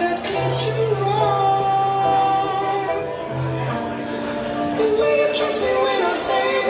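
Recorded pop song played loudly over a sound system: a sung vocal line over a steady low bass note, with the bass dropping out for about a second midway.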